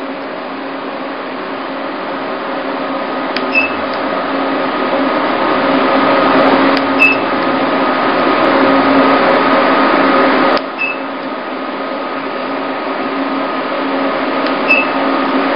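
E-light IPL + RF beauty machine running with a steady whirring hum. A sharp click, mostly followed by a short high beep, sounds about every three to four seconds, four times in all, as the handpiece fires a light pulse.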